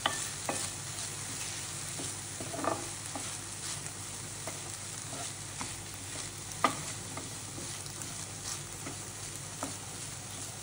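Food frying in a pan with a steady sizzle, and a spoon stirring and scraping against the pan now and then, with a sharper scrape about two-thirds of the way in.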